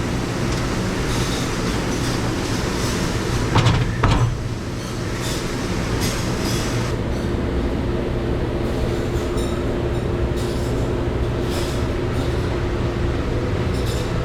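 Steady mechanical hum and rushing noise of a restaurant dish area, with a loud clatter of dishes about four seconds in and scattered clinks of plates and silverware throughout.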